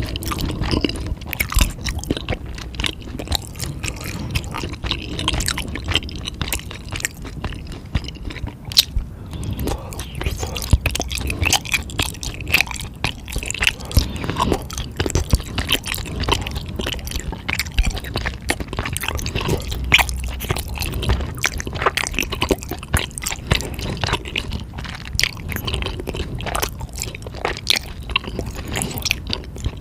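A person biting and chewing spicy food, with many short quick clicks and mouth noises.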